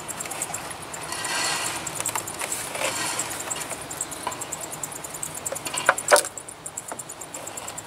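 Handling noises as a Mercedes Sprinter Classic's vacuum pump is worked loose from the engine by hand: rustling and light knocks of metal and plastic, with a sharp clatter about six seconds in.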